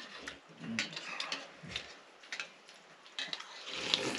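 Spoons clinking and scraping against steel bowls while people eat soup: a scatter of light irregular clicks and taps.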